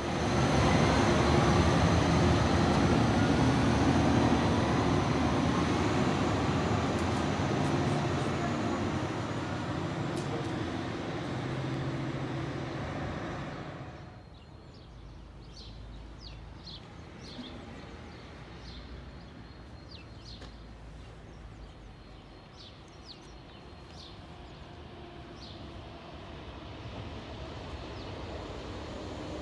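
A TER passenger train runs through close at speed, a loud rushing rumble with wheel and rail noise that slowly fades. It then cuts to quieter surroundings with birds chirping, while a distant electric locomotive grows slowly louder as it approaches near the end.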